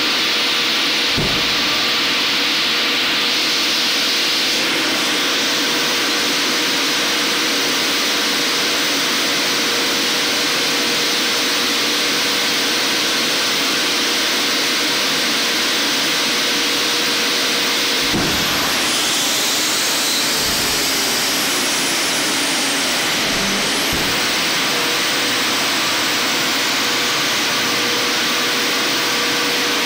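Boeing 747-400 air-driven hydraulic pumps running hard on ground pneumatic air during a landing gear swing test, a loud steady rush with a faint steady hum. About eighteen seconds in there is a thump and the hum drops out, followed by gliding whistles and a second thump as the wing landing gear swings down.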